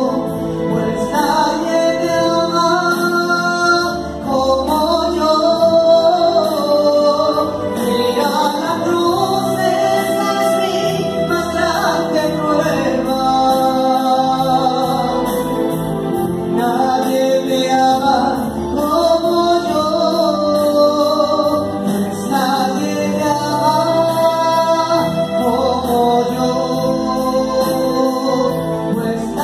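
A woman singing a Catholic meditation song into a microphone, with electronic keyboard accompaniment holding long sustained chords under her voice.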